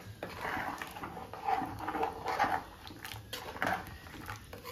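A steel ladle stirring thick green peas curry in an aluminium pressure cooker, scraping and knocking against the pot. Several short whining sounds come through over the stirring, loudest about two seconds in.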